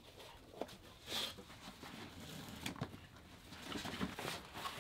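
Soft rustling and light clicks of a sports bag and clothing being handled, in scattered short bursts, one a little louder about a second in.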